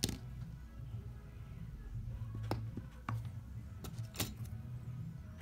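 A few short, sharp clicks and taps of a small prying tool working the iPhone X screen loose from its frame, over a low background hum.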